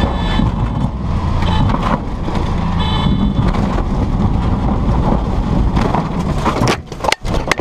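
Cabin of a Cessna 205 during a forced landing in a muddy field: a heavy rumble and rattle as the plane runs over rough ground, with a high tone sounding on and off in the first few seconds. Near the end comes a string of sharp impacts with sudden drop-outs, as the landing gear tears off and the plane flips nose-over.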